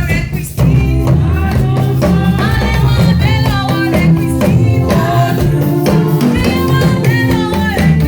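Praise music: singing over a drum kit and low steady bass notes, with a brief drop in level about half a second in.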